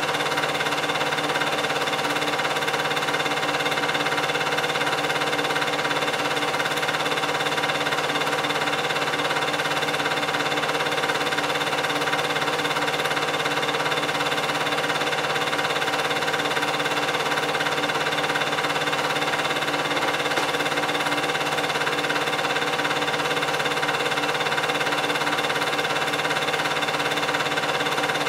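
8mm film projector running: a steady motor hum with the even whirr of the film transport, unchanging in pitch and level.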